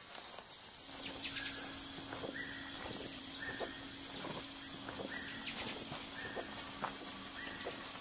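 Tropical rainforest ambience: a steady high-pitched insect buzz, with a short flat call note repeated about once a second, six times, over a low steady drone that joins about a second in.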